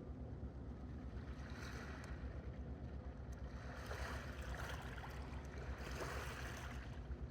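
Sea waves washing in, swelling and ebbing three times about two seconds apart, over a low steady rumble.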